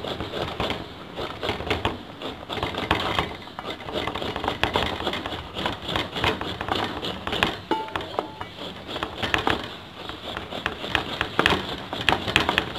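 Chinese yam being grated by hand on a grater with a slotted metal blade into a stainless steel bowl: a quick, irregular run of scraping strokes.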